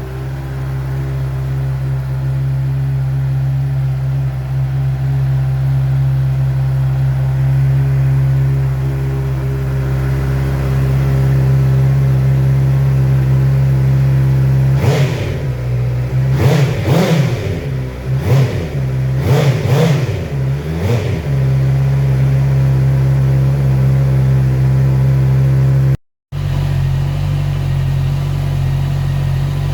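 Motorcycle engine idling steadily through its exhaust, then blipped about five times in quick succession partway through before settling back to idle. The sound cuts out for a moment near the end.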